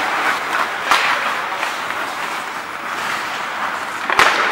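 Ice hockey play in a rink: a steady hiss of skates on the ice with a few light clacks of sticks and puck, and one sharp crack near the end.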